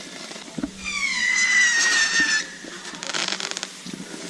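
A consumer firework going off: a short pop, then a high whistle that slides gradually downward for about a second and a half, followed by a brief burst of rapid crackling.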